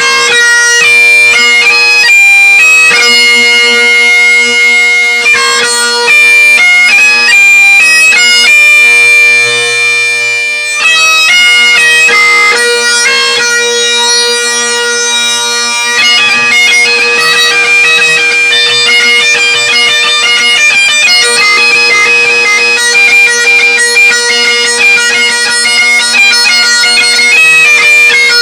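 Great Highland bagpipe played solo: the drones hold one steady low note under the chanter melody, which moves quickly with many short grace-note flourishes and gets busier about halfway through.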